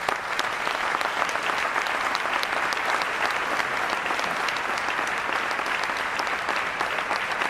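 A large audience applauding: dense, steady clapping that breaks out suddenly and keeps going without letting up.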